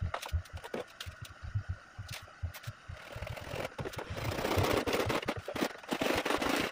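PVC pipes and plastic fittings knocking and clattering irregularly as they are handled and pushed together, with a louder rough rubbing noise over the last few seconds.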